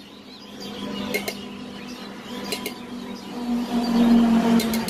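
Steady low engine hum of road traffic, swelling with a deep rumble about three and a half seconds in as a truck passes close by, with a few faint clicks.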